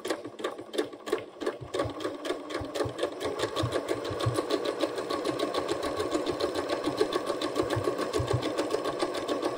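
Electric sewing machine stitching through an elastic waistband casing, with the needle going up and down in a rapid, even rhythm. It starts a little slower and quieter, then settles at full steady speed after the first couple of seconds.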